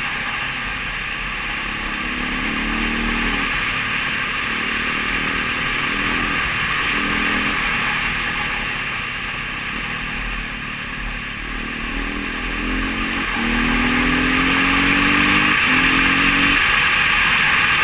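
Dirt bike engine running on a trail ride, revving up again and again with its pitch climbing in short runs as it accelerates, over a steady rush of noise. It gets louder about three-quarters of the way through.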